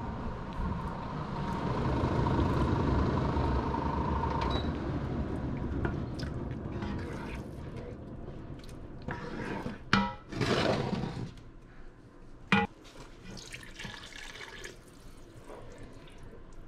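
Canned crushed tomatoes sliding and glugging out of a tin into a pot of sauce, scraped out with a wooden spoon, with a couple of sharp knocks of the can. A steady hum runs under the first four seconds or so, then stops.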